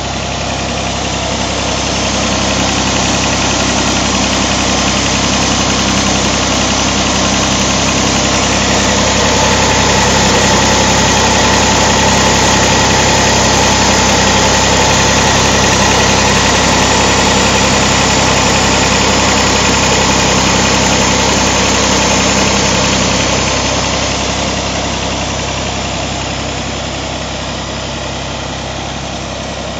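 Massey Ferguson 135 three-cylinder Perkins diesel engine in a Broomwade compressor idling steadily. It grows louder about two seconds in and eases off again near the end.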